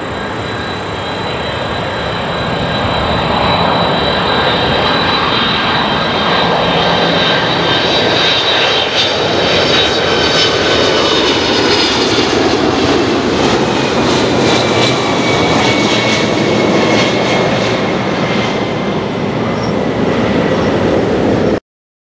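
Boeing 767-300ER twin-jet airliner on landing approach, flying low overhead: a loud jet engine rush with steady whining tones. It grows louder over the first few seconds, and the whines slide lower in pitch as the aircraft passes. The sound cuts off suddenly near the end.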